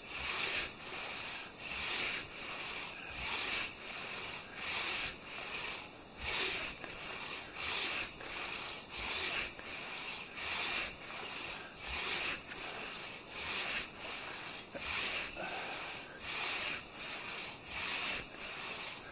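Hand saw cutting through a maple log, in a steady rhythm of rasping strokes: a louder stroke about every one and a half seconds, with a softer return stroke between.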